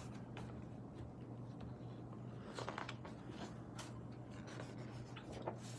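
Pages of a paperback picture book being turned and handled: brief soft paper rustles, the strongest about two and a half seconds in, over a faint steady low hum.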